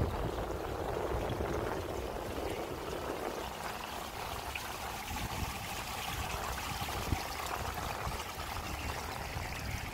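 Steady wash of shallow water rippling and trickling across a glass rooftop pool.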